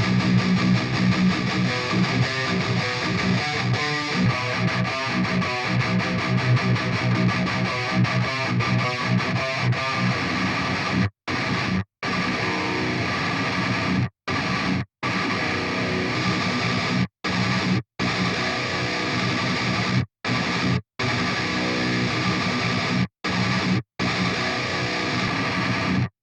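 Electric guitar with a heavy distorted tone playing a metal riff. About a third of the way in, the riff turns into repeated phrases that stop dead twice every three seconds or so.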